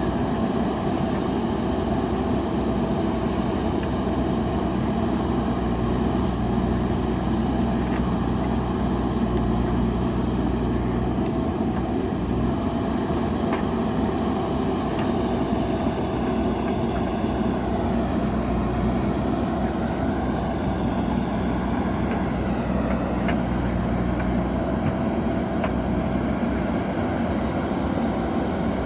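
Diesel engine of a JCB backhoe loader running steadily at working speed.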